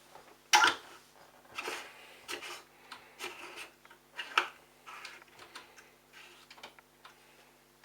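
Irregular scraping, rubbing and clicking of parts being handled at a washing machine's drain pump filter opening, with the loudest knock about half a second in, over a faint steady hum.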